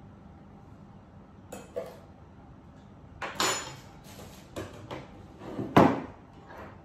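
Dishes and food containers being handled on a kitchen counter: a few light knocks, then clattering, with one sharp knock, the loudest, near the end.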